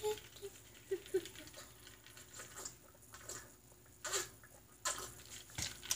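Quiet room with faint handling noises, then a couple of short drinking sounds, gulps or slurps from a cup, about four and five seconds in.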